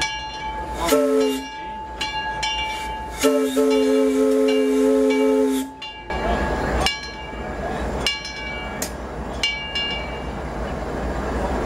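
The whistle of Disneyland Railroad locomotive No. 4, Ernest S. Marsh, sounds a chord of several notes: a short blast about a second in, then a long blast of about two and a half seconds. A bell strikes about once a second throughout, each strike ringing on briefly.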